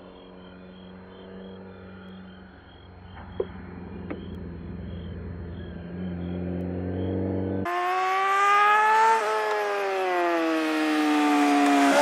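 Sport motorcycle engine at track speed: a low, steady drone growing louder as it approaches, with two sharp ticks about three and a half and four seconds in. Then a louder, high-revving engine note rises in pitch and falls away as the bike passes close by.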